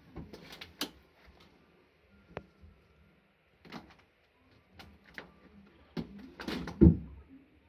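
A string of separate clicks and knocks, the loudest a low thump near the end.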